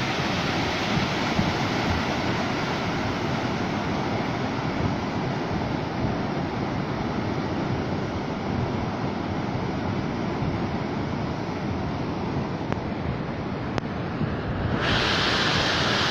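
Flash floodwater rushing down a dry riverbed, a steady rush of water, with wind on the microphone. About fifteen seconds in, the sound changes abruptly to a brighter, louder hiss.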